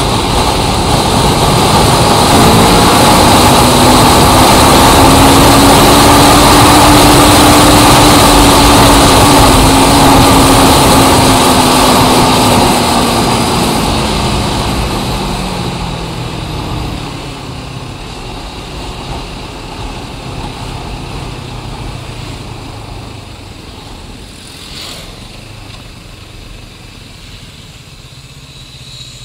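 A loud engine drone swells and then fades away over about twenty seconds. Its tone rises a little and then slides slowly down in pitch, like a large vehicle or aircraft passing.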